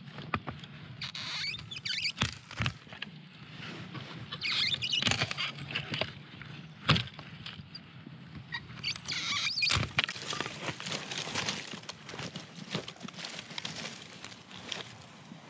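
Long-handled loppers snipping and snapping through thin bare branches, a sharp crack every second or two with the loudest near the middle and about two-thirds of the way through, between stretches of twigs rustling and scraping over grass. A steady low hum runs underneath.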